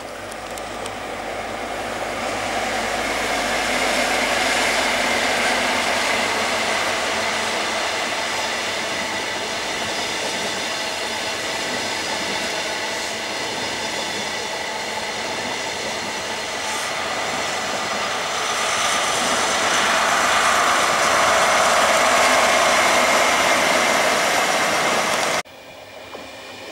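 Express passenger train passing close at speed: a steady rush of wheels on rail as the coaches roll by, loudest as the front and then the rear of the train go past. Near the end the sound drops off suddenly, and a quieter train approaching starts to build.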